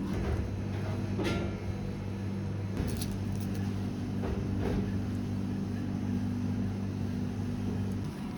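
Steady low mechanical hum of kitchen machinery, with a few short knocks and clinks of handling scattered through it.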